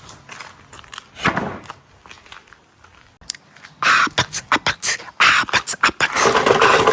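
Marbles clicking and rattling along a marble run's rails: a few scattered clicks at first, thickening into a loud, dense clatter about four seconds in.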